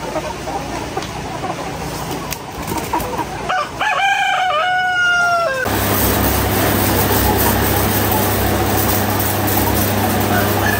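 A rooster crows once about four seconds in, over a busy farmyard background. About halfway through the sound cuts abruptly to a steady low mechanical hum with a hiss, with fainter crowing behind it.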